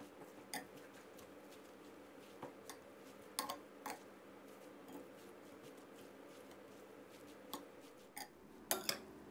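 Metal spoon tossing rice noodles with pork and herbs in a glass bowl: faint scattered clicks of the spoon against the glass and soft wet mixing sounds, with a couple of louder clinks about three and a half seconds in and a quick cluster near the end.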